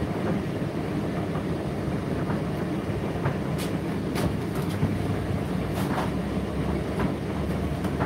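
Indesit IDC8T3 condenser tumble dryer running mid-cycle: a steady rumble of the motor and turning drum, with several light knocks in the second half.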